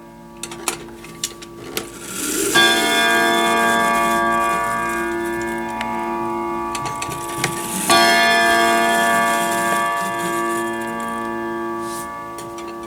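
Grandfather clock's striking mechanism striking the hour on its own: a few mechanism clicks, then two struck notes about five seconds apart, each ringing on long. The owner says the movement needs cleaning and oiling.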